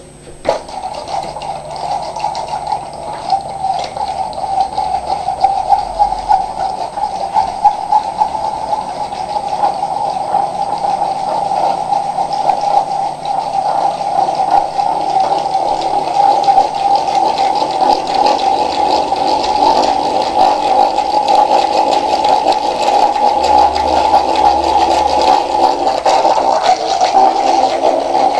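Broken Powerball gyroscopic wrist trainer spinning fast, its rotor giving a loud whir held at about one pitch with a dense clattering over it, the noise of the broken unit. It grows louder over the first ten seconds or so as the rotor is spun up, then holds.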